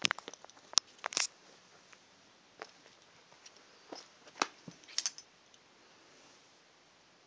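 Scattered sharp rustles and clicks from a cat wrestling and kicking a rabbit-fur toy on carpet, mixed with light metallic clinks from its collar tag. They are busiest in the first second and a half, with a few more about four and five seconds in.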